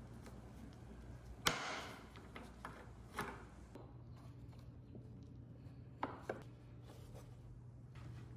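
A screwdriver and a wooden drawer being handled on a workbench, with a few sharp knocks and clicks as the screwdriver works at the inside of the drawer front. The loudest knock comes about a second and a half in and a quick pair about six seconds in, over a steady low hum.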